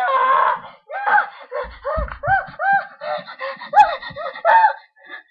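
A child's voice wailing in a run of about ten short, high-pitched, rising-and-falling cries, each about a third of a second long: mock-dramatic crying.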